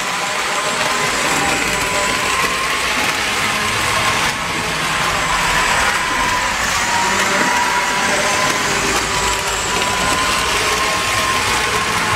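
Model train running on its layout track: a steady electric motor whine that wavers slightly in pitch, over a continuous hiss.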